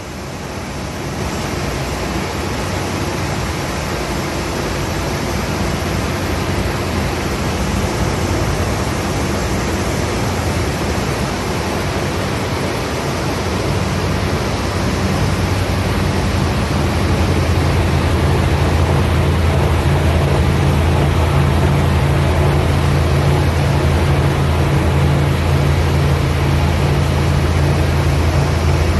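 Multiwire cutting machine running as it slices magnet material: a steady hiss with a low hum that grows louder about two thirds of the way through.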